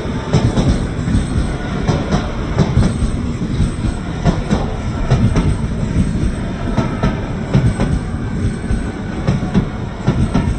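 Train running on rails: a steady, loud rumble with frequent wheel clacks over the rail joints.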